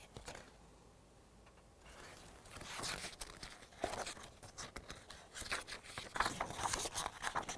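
Paper rustling and crinkling as a picture book's pages are handled and turned, in an irregular run of short crackles that starts about two seconds in after a quiet moment.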